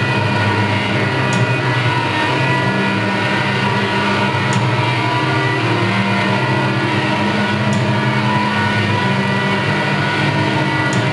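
Loud, steady electronic drone from a small guitar amplifier: many low tones held together under a noisy haze, with a faint sharp click about every three seconds.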